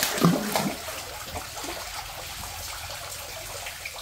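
Water running and trickling steadily into a large fish tank. It is a little louder for the first half-second.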